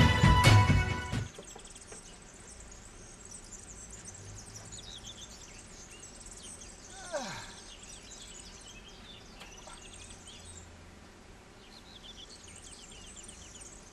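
Theme music that cuts off about a second in, followed by quiet outdoor ambience with birds chirping. About seven seconds in there is one brief sound falling steeply in pitch.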